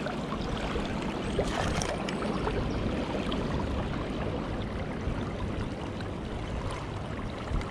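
Shallow river current rushing steadily over a riffle, a continuous watery hiss close to the microphone.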